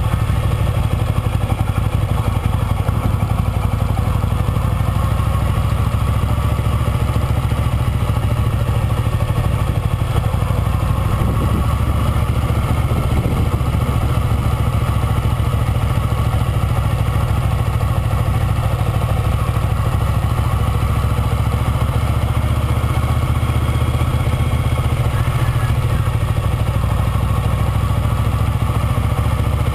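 Motorcycle engine running steadily with no revving, its sound strongest at the low end, heard from a camera riding on the moving bike.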